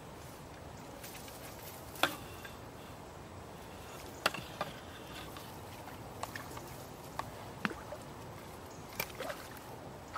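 Faint steady outdoor background with a scattered series of short, sharp clicks and knocks, about eight in all, the loudest about two seconds in.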